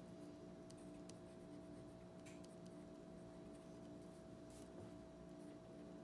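Faint scratching of a 0.3 mm Uni Kuru Toga Advanced mechanical pencil's lead writing on paper, in irregular short strokes over a steady low hum.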